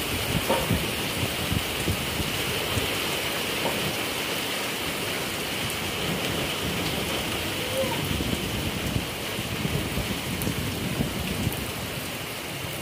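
Heavy rain falling steadily, with scattered individual drops ticking close by.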